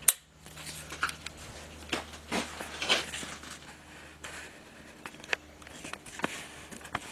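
Handling noise of a camera being taken off its mount and carried close over the work: a sharp click at the start, then scattered clicks and rustles, over a low steady hum that fades about five seconds in.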